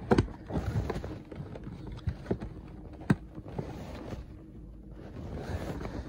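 Cardboard and plastic toy packaging being handled and pulled at, rustling, with a few sharp snaps: one at the start and two more about two and three seconds in.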